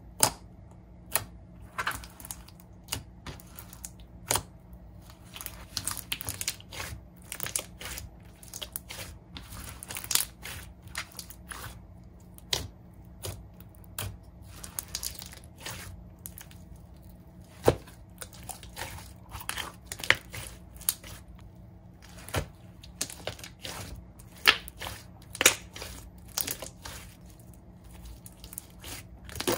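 Large glossy homemade clear slime with glitter being poked, pressed and folded by hand. It gives an irregular stream of sharp pops and crackles, several a second.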